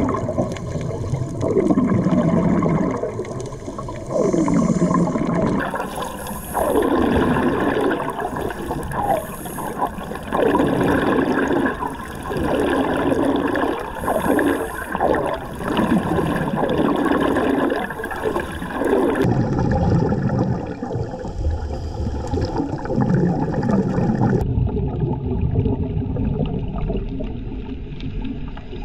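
Underwater recording: bubbles gurgling in repeated bursts about every two seconds, each burst dropping in pitch, over a low water rumble, typical of a scuba diver's exhaled bubbles.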